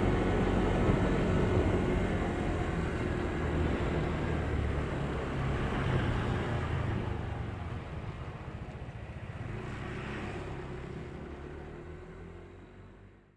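Vehicle driving along a road: a steady engine hum over low road rumble, fading away over the last few seconds.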